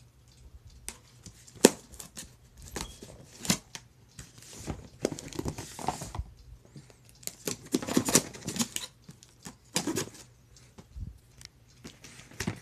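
Cardboard shipping box and boxed products being handled and rummaged through: irregular rustling, crinkling and light knocks of cardboard and packaging, with one sharp knock about a second and a half in.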